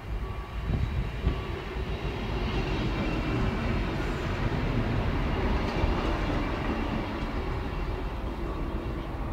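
A class 643 Bombardier Talent diesel multiple unit passes close by at a level crossing. Its engine and wheel noise swells about a second in, stays loud for several seconds and eases near the end. The crossing's warning tone beeps in short repeated pulses underneath.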